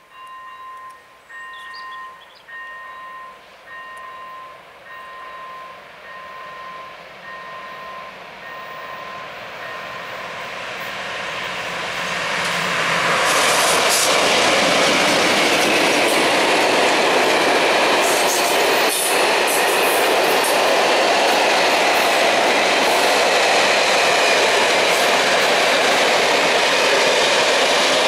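Level-crossing warning bell chiming in two repeated tones, then a freight train hauled by two MLW diesel locomotives draws near and passes close by, getting louder over several seconds. From about halfway through, the long string of freight wagons rolls past with steady wheel clatter on the rails that drowns out the bell.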